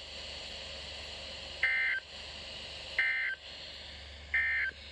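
Three short bursts of NOAA Weather Radio SAME digital data tones, a harsh two-pitch warble, about a second and a half apart over a steady broadcast hum. The bursts are short enough to be the End of Message code that closes the warning just read.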